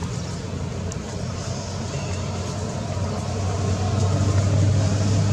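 Low, steady engine hum of a motor vehicle running nearby, getting louder about three seconds in.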